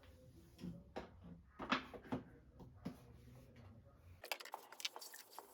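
Soft, irregular clicks and taps of small objects being handled, with a low background hum that stops about four seconds in, after which the taps come quicker.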